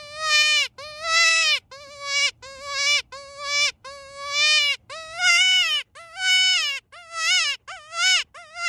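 Hand-held mouth predator call blown in a series of about a dozen wavering, bleating distress cries, getting higher and quicker in the second half; this is the distress sound used to call in coyotes.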